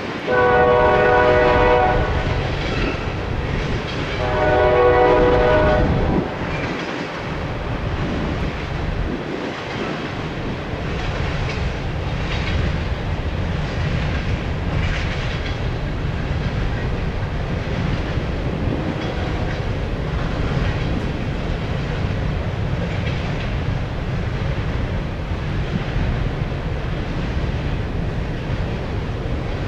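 A train horn sounds two long blasts of about two seconds each within the first six seconds. Throughout, open hopper cars of a freight train roll past with a steady rumble and the clatter of wheels on the rails.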